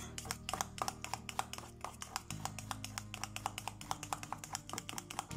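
Rapid clicking and tapping of a stirring utensil against a stainless steel bowl, about eight to ten clicks a second, as a soap mixture is beaten by hand into a gel. Soft background music underneath.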